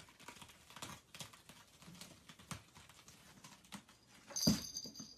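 Cats' claws scratching and scrabbling at a sisal-rope scratching post, with scattered light knocks, then one loud thump about four and a half seconds in as the post topples over.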